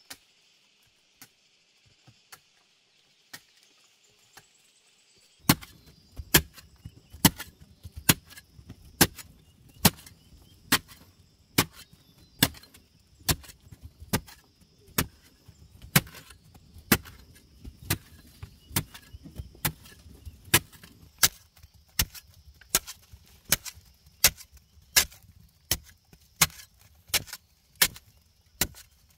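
A pick digging into hard clay and soft rock: sharp, regular strikes about one a second, with loose earth and chips tumbling between them. For the first five seconds or so, before the striking starts, there is only a faint high insect buzz.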